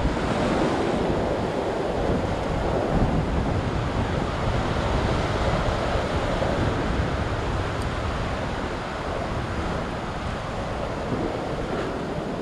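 Ocean surf washing and foaming against a rock ledge, a steady rush of water, with wind buffeting the microphone.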